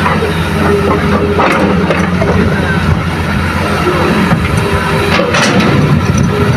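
Hitachi hydraulic excavator's diesel engine running steadily under load as the arm swings and the bucket digs into soil, with a few short knocks about a second and a half in and again around five seconds in.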